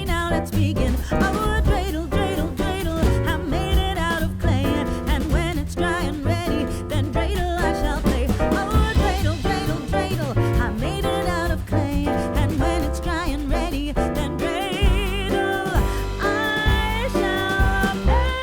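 Background music: a song with a singer, the voice wavering in pitch over a moving bass line.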